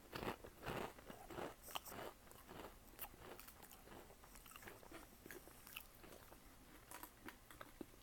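A cat chewing a piece of cheddar cheese Pringles crisp: a run of faint, irregular crunches, thickest over the first two seconds or so, then thinning to scattered small clicks.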